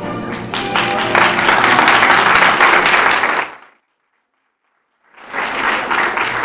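An audience applauding over background music, the clapping swelling about half a second in. A little past the middle the sound cuts out completely for about a second and a half, then the applause and music come back.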